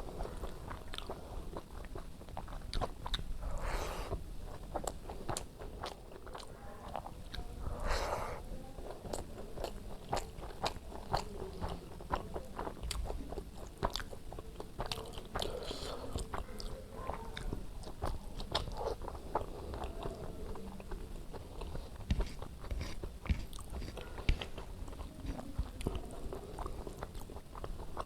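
Close-miked chewing and wet mouth clicks of someone eating white rice with oily brinjal curry: a steady run of small smacks, with louder bursts about four and eight seconds in.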